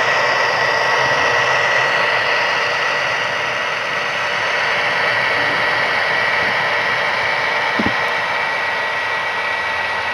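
HO scale model diesel locomotive running slowly along the track: a steady engine-like hum with a high whine, and a single click about eight seconds in.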